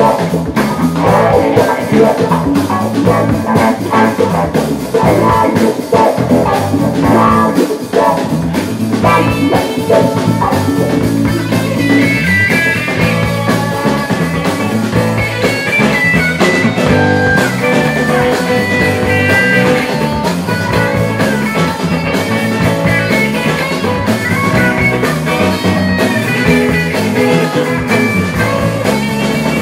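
Rock band playing live, guitar over a steady beat of drums.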